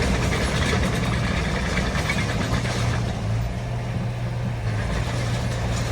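Diesel engine of a D20 bulldozer running steadily with a low, even drone that eases a little about three seconds in.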